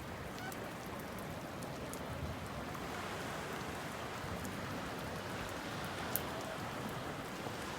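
Steady rain falling, an even hiss with scattered drops ticking, one sharper tick about six seconds in.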